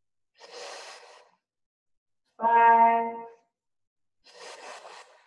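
A woman breathing hard during a slow core exercise: two breathy puffs of about a second each, one near the start and one near the end, with a drawn-out spoken count between them.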